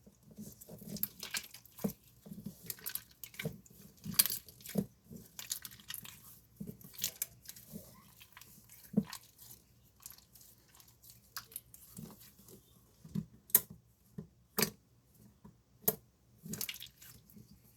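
Slime being squeezed and played with by hand: irregular wet squelches, crackles and pops, with a few louder sharp snaps in the last third.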